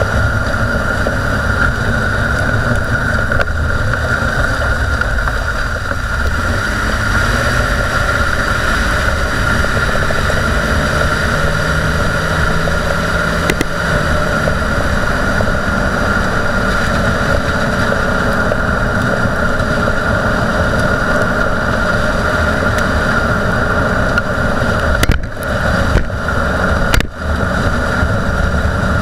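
Dodge Durango front wheel hub bearing growling under a steady tyre and road rumble, heard up close from the suspension while driving: a worn unit bearing. The noise holds steady, with two brief drops in level near the end.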